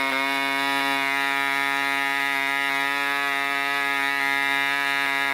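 A 1965 Mikro Std 3.5 cc model diesel engine running steadily on a test stand at about 8,800 rpm while spinning a propeller. Its pitch stays even throughout.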